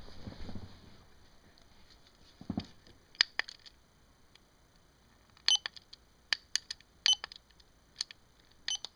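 A series of irregular sharp clicks, starting about three seconds in and coming in small clusters, after a soft thump.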